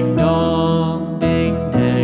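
Background music: a gentle instrumental tune of sustained notes changing every half second or so.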